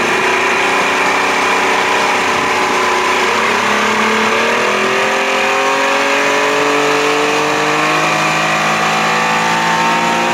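1992 Johnson 60 hp two-stroke outboard motor opened up under throttle, its pitch climbing as the boat picks up speed, with a step up about four seconds in and a slower rise after that.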